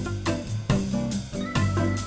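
Upbeat background music with a guitar and a steady beat.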